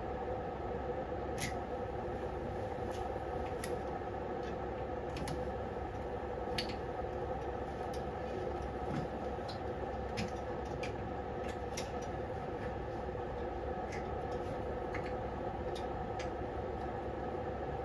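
Scattered light clicks and taps of small engine parts being handled as the carburetor, fuel line and governor springs are fitted back onto a snowblower engine, over a steady background hum.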